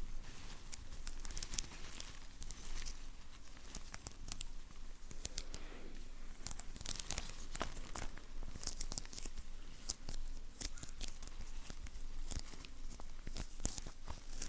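Close-miked ASMR sticky sounds: a sticky surface being pulled apart and pressed again, giving a continuous run of sharp, irregular crackles and small tearing noises.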